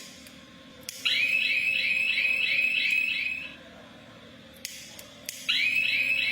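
A homemade electronic fire alarm sounding a high warbling tone, about three rising sweeps a second, in two bursts of a few seconds each, with a click just before each burst.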